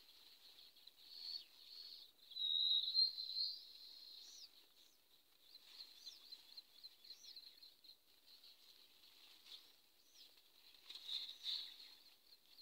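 Faint bird chirps: short high calls that rise and fall, scattered through, loudest about two to three and a half seconds in and again near the end, over a faint steady high-pitched background.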